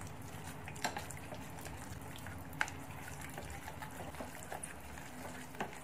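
Chopsticks stirring wet minced pork filling, loosened with starch and water, in a glass bowl: a soft wet squishing, with a few sharp taps of the chopsticks against the glass.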